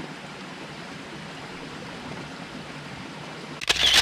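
Steady rushing noise, with a short, much louder crackle near the end.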